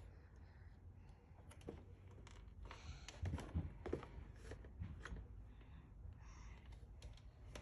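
Faint scattered clicks and light taps of small plastic toy pieces being handled, a little busier around the middle, over a low steady room hum.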